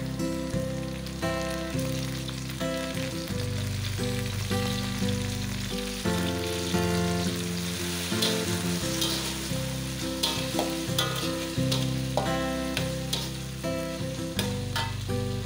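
Fermented soybean paste frying with sliced shallots, garlic and green chillies in a wok, sizzling as a slotted metal spatula stirs it, with short scrapes and clicks of the spatula on the pan. The sizzle is loudest around the middle.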